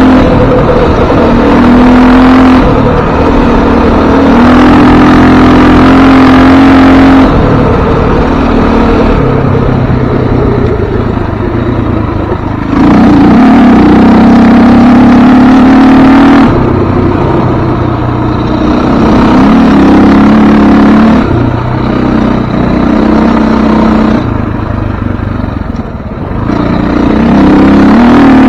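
Off-road vehicle's engine running hard, its pitch and loudness rising and falling every few seconds as the throttle opens and eases off, heard close up from on board.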